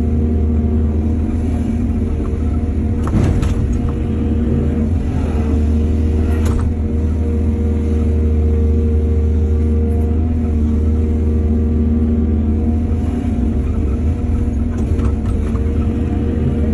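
Heavy diesel engine running steadily under a deep rumble, with a few short knocks about three and six seconds in.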